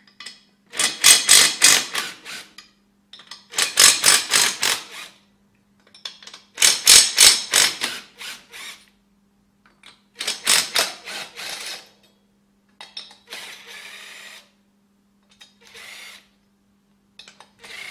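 Cordless impact driver hammering, undoing the head bolts of an aluminium-finned compressor cylinder head: four loud bursts of rapid impacts about every three seconds, then three shorter, quieter runs near the end as the last bolts give.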